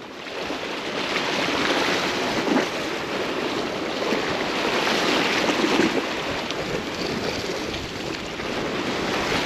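Sea surf washing over rocks, a steady rush of water that swells and eases slowly, with wind buffeting the microphone.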